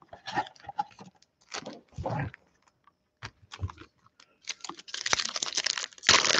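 Foil trading-card packs clicking and crinkling as they are handled, then about five seconds in a longer, louder crinkling as a foil pack wrapper is torn open.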